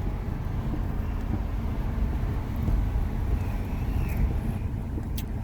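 Steady low rumble of a car driving, heard from inside the cabin, with a sharp click near the end.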